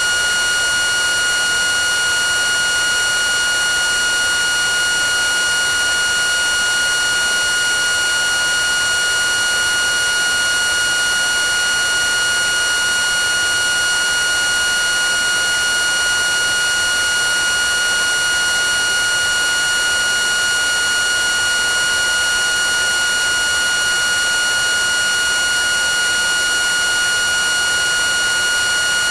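VHS-style static sound effect: a steady hiss with a constant, high buzzing tone over it, unchanging throughout.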